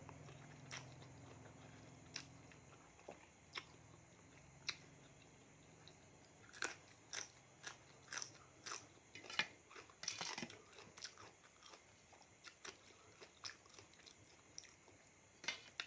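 Faint mouth sounds of someone eating a spicy seafood salad: chewing with wet lip smacks and small clicks, which come thickest in the middle.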